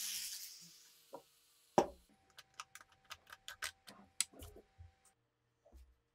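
A run of about a dozen light, quick clicks, roughly five a second, after one sharper click: the plastic screw cap coming off a small bottle of gun-bluing liquid. A few dull knocks follow as the bottle is handled, and a hiss fades out over the first second.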